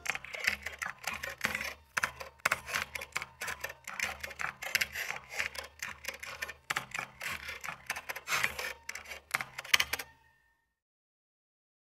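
Fast typing on a laptop keyboard: a dense, irregular run of key clicks that cuts off suddenly about ten seconds in.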